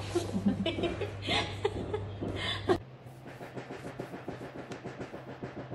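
Brief chuckling and murmured voices over a low steady hum. Both cut off suddenly about three seconds in, leaving faint rapid ticking.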